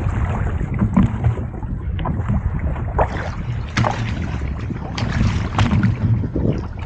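Wind buffeting the microphone aboard a small fishing boat at sea, a steady low rumble, with a few sharp knocks scattered through it.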